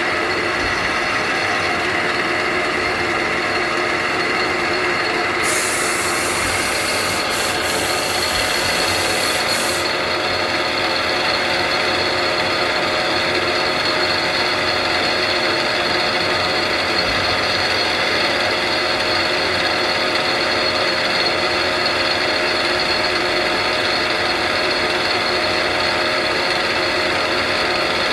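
CNC lathe running a live-tool engraving cycle on the C and Y axes: a steady machine whine with several held tones over dense cutting and mechanism noise. A high hiss joins about five seconds in and stops about ten seconds in.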